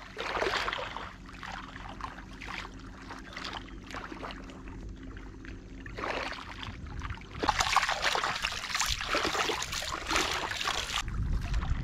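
Water splashing and trickling in irregular bursts, loudest in the second half, over a faint steady low hum.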